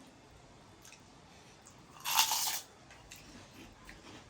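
A person eating instant noodles close to the microphone: one short, loud eating noise about two seconds in, with faint small mouth clicks around it.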